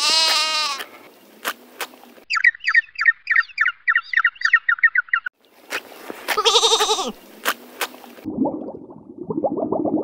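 Sheep bleating: one loud bleat at the start and another about six and a half seconds in. Between them come about three seconds of fast, repeated bird chirping. Near the end a lower, rapidly pulsing animal call begins.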